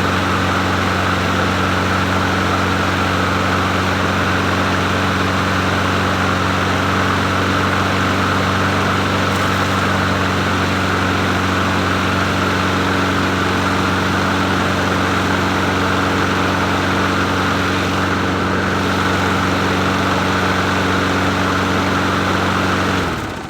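Bolens 22-inch push mower's small engine running steadily at a raised idle, then cutting off near the end.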